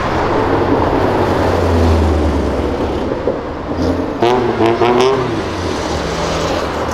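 Sports cars passing on a city avenue, with a steady engine and road-noise rush. About four seconds in, an engine revs in short stepped bursts for about a second, with a few sharp pops.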